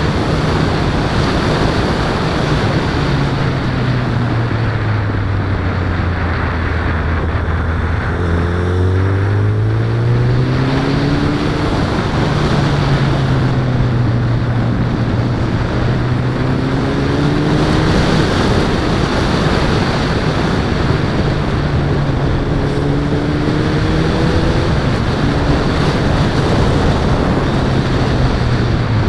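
Suzuki Bandit's inline-four engine running on the move, its revs sinking slowly for several seconds, then climbing and easing off again a few times, under steady wind rush on the action-camera microphone.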